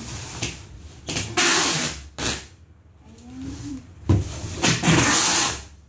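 Packing tape being pulled off the roll in several loud, noisy strips. The longest pulls come about a second in and again near the end, with a short one in between.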